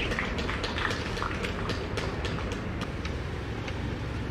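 Steady low outdoor rumble with many short, sharp high ticks scattered irregularly through it.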